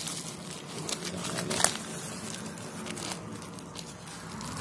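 Plastic bubble wrap and a plastic bag crinkling and crackling as hands handle and unwrap them, in irregular sharp crackles. The loudest crackle comes about one and a half seconds in.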